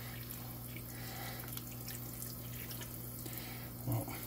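Kitchen faucet spray running steadily into a sink, splashing over hands and a trout being gutted under it. One short, louder sound comes near the end.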